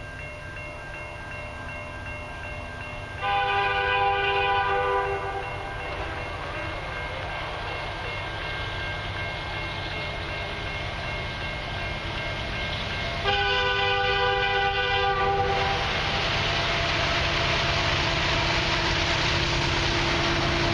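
Approaching CN freight train's diesel locomotive horn sounding two long blasts, each about two seconds, roughly ten seconds apart. The noise of the approaching locomotives and train grows steadily, louder after the second blast.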